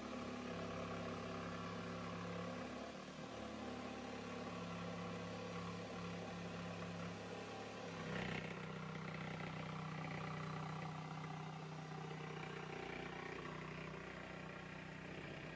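Handheld power saw with a dust-extraction vacuum hose attached, cutting through plywood: a steady motor hum that shifts slightly about halfway through.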